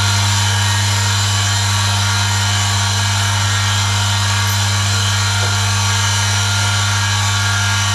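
Motor-oil friction test rig running under a 1 kg load: a steady electric-motor hum with an even hiss of metal rubbing on the spinning, oil-fed wheel. The test gauges how much friction and wear the oil lets through.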